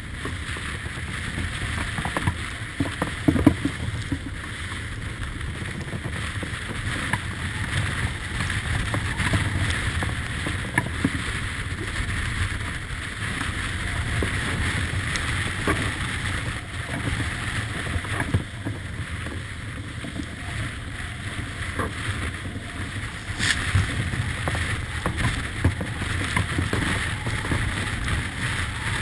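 Wind and rushing water around a Beneteau 40.7 yacht beating into rough seas, with spray breaking over the cockpit. A cluster of louder knocks comes about three seconds in, and more sharp hits come later on.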